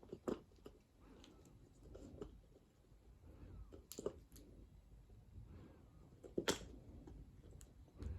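Scattered light taps and knocks as cats bat at a bare cat-toy wand stick. Three sharper knocks stand out: one just after the start, one about four seconds in and one about six and a half seconds in.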